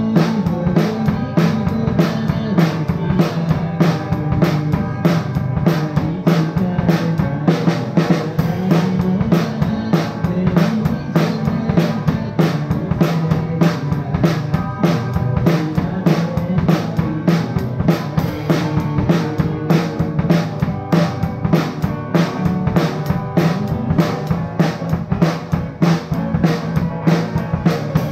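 Rock band playing live in rehearsal: a drum kit with kick, snare and cymbals keeping a steady beat under electric guitar.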